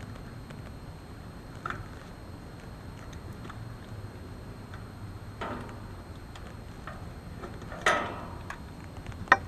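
A few scattered clicks and knocks from tools and parts being handled during air conditioner capacitor work, the loudest about two-thirds of the way through and a sharp click near the end, over a steady low hum.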